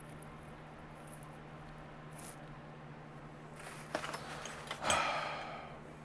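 Tools and odds and ends being handled in a tool-cart drawer: a few sharp clicks about two thirds in, then a louder scraping, rattling clatter that fades out, over a steady low hum.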